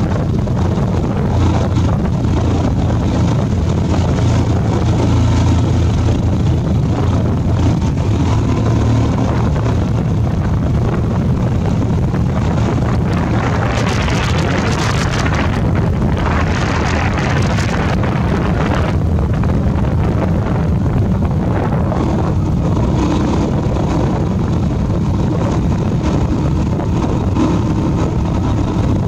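Motorbike running steadily along the road, with wind buffeting the microphone. About halfway through, an oncoming motorbike passes, adding a brief brighter rush of noise.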